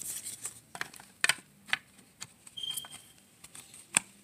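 Handling noise from a plastic Bluetooth-speaker housing being moved about on a cloth: a scatter of irregular sharp clicks and taps, the loudest near the end.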